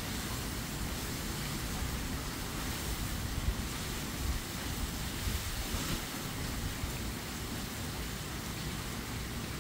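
Hurricane wind blowing steadily in a constant rush through queen palm fronds and trees. Low, uneven buffeting of the wind on the microphone runs underneath, with a few stronger gusts partway through.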